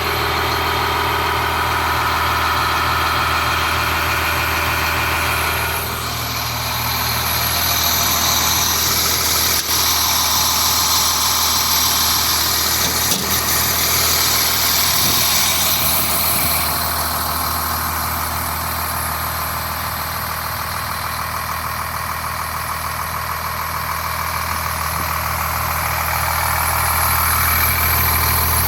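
A 2001 Blue Bird All American school bus engine idling steadily, its level rising and falling slightly, with a couple of faint knocks.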